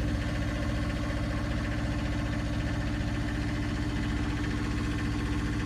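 Perkins 402D-05G two-cylinder, half-litre, liquid-cooled diesel engine of an Aurora generator, running steadily at its constant 1800 RPM generator speed, with a steady hum.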